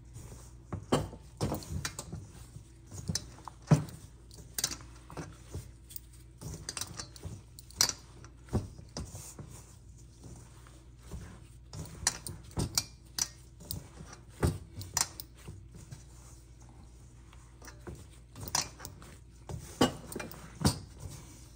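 Gloved hands mixing and kneading a flour-and-water dough in a stainless steel mixing bowl: irregular knocks and taps of the metal bowl, about one or two a second, with a quieter stretch a little past the middle.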